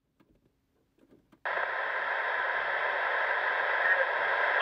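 Railroad radio scanner: near silence with a few faint ticks, then about a second and a half in the squelch opens onto a steady static hiss of an open channel with no voice in it.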